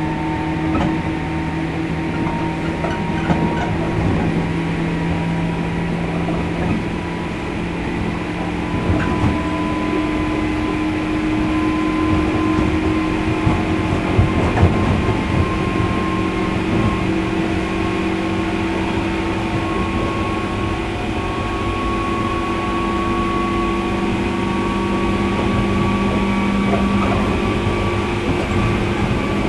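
JR 103 series electric train running, heard from inside the car. The traction motors' whine rises slowly in pitch as the train picks up speed, over a steady rumble of wheels on rail with a few knocks.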